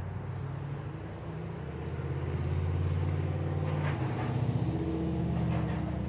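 A motor vehicle's engine humming low and steady, growing louder about two seconds in, with a few faint scratches of gloved hands digging in dry soil.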